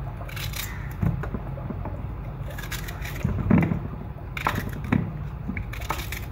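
Kitchen knife cutting peeled onions in half over a plastic bowl: several short crisp cuts and knocks, the loudest about three and a half seconds in, over a steady low hum.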